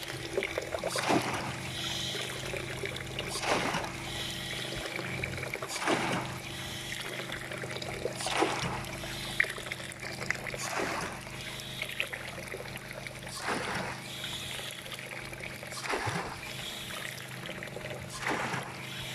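Bunyip PA13 hydraulic ram pump cycling in a test tank: a regular surge-and-thump of its valve about every two and a half seconds, eight in all, over steady splashing water. It is pumping against high pressure, near 800 psi.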